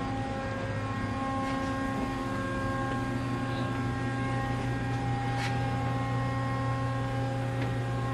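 Steady machinery hum with a low drone and several thin, unchanging higher tones, and a few faint light clicks.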